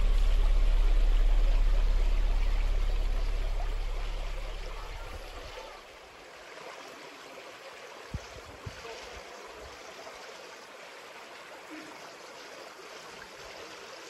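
Low background music fades out over the first five or six seconds, leaving a river stream flowing steadily over rocks. Two soft knocks come a little past the middle.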